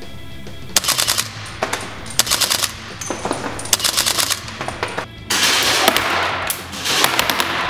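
Top SR16 URX II electric blowback airsoft rifle firing on full auto: about five or six short bursts, each a rapid string of sharp clacks, the last two longer.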